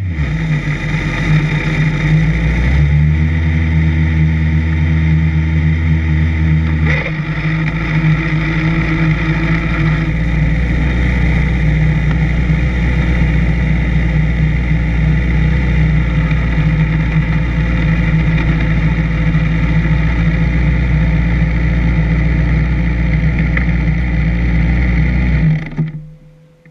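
Race prototype's engine heard from the cockpit, running steadily at a near-constant pitch as the car rolls slowly. About a second before the end it is switched off and the sound cuts out suddenly.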